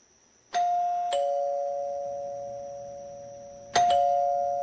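Door chime ringing a two-note ding-dong, a higher tone then a lower one, each ringing on and fading slowly. It is struck again twice in quick succession near the end.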